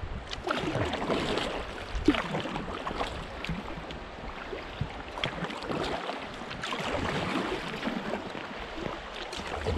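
Water splashing and gurgling around a canoe in shallow river water, with irregular small splashes throughout.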